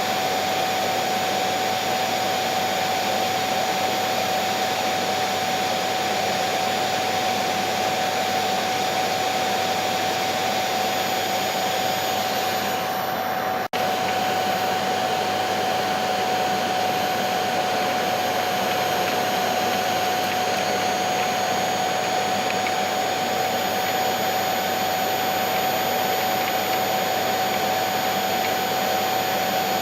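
Vacuum cleaner running steadily, a constant rushing hiss of air with a steady motor whine. There is a momentary dropout about halfway through.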